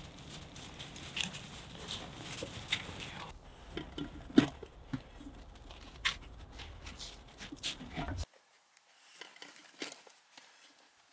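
Scattered small clicks and rustles of camping gear being handled, with one sharp click about four seconds in.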